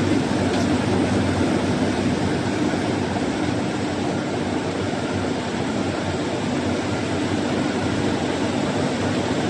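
Wood-sanding machine running with a steady, even rushing noise.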